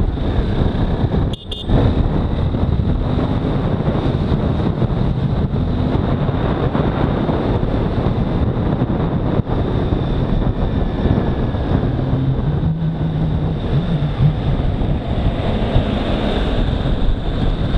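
Heavy wind rush on the microphone of a Honda CBR250R motorcycle running at high speed on a highway, with the bike's single-cylinder engine droning under it. The noise drops out briefly about a second and a half in.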